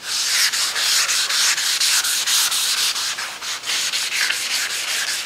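Sandpaper on a flexible hand sanding block rubbing over the primered body panel of a 1969 Chevy Chevelle, a hissing scrape in quick, even back-and-forth strokes that starts abruptly. This is block sanding the primer smooth, here along the panel edges, to get the car ready for paint.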